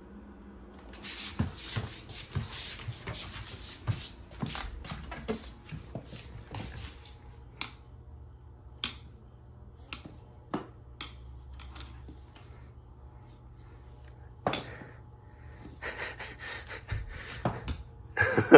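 Small bells on a cat wand toy jingling and rattling as it is shaken: a busy stretch of jingling for the first several seconds, then scattered single clinks and knocks, and another burst of jingling near the end.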